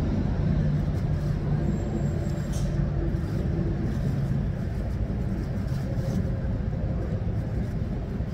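Steady low rumble of an idling motor vehicle engine, with a constant low hum, and a few light rustles of clothing being handled.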